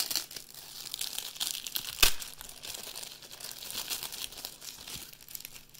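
Plastic shrink wrap crinkling and tearing as it is pulled off by hand, with one sharp snap about two seconds in.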